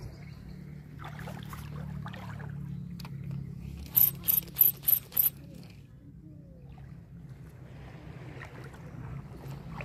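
Tridentech Killer 2000 SW spinning reel being wound in on a squid-jigging retrieve, a steady low mechanical whir that eases off about halfway through, with a quick run of five sharp, high ticks about four seconds in.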